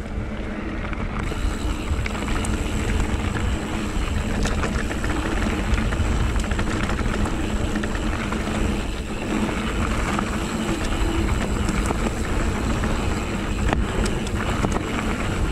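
An electric mountain bike riding a rough dirt trail: steady tyre noise and wind buffeting the action camera's microphone, with scattered clicks and rattles from the bike.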